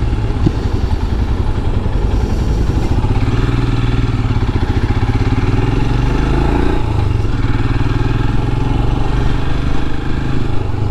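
Royal Enfield Himalayan's 411 cc single-cylinder engine running under way, the revs rising and then dropping a little after halfway, as at a gear change.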